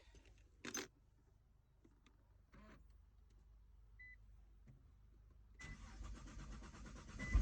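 Nissan GT-R R35's twin-turbo V6 being started: near silence with a few faint clicks and a short high beep, then a faint whirring for about two seconds before the engine fires right at the end. It starts readily now that the fuel pump has been refitted with a new filter in place of the clogged one that caused the hard starting.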